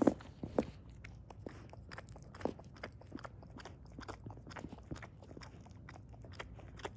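Mother dog, a Pomeranian-Husky mix, licking and mouthing her newborn puppy to clean it and get it breathing: irregular clicking and smacking mouth sounds, loudest in the first second.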